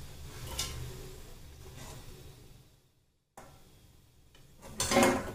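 Slotted steel spoon scraping and clinking in a kadhai of hot ghee as fried batti pieces are lifted out. The sound drops out briefly about three seconds in, and a loud, short metallic clatter comes near the end.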